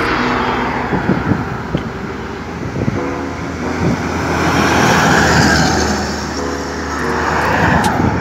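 A medium-duty box truck driving past at highway speed, engine and tyre noise swelling to a peak about halfway through and then fading as it goes by.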